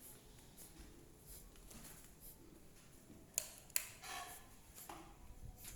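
Faint handling noises: scattered soft clicks, then two sharper clicks close together about three and a half seconds in.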